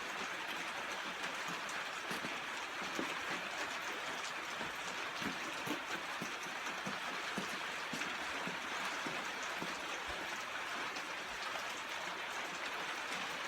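Heavy rain falling steadily, with scattered drips landing on a surface.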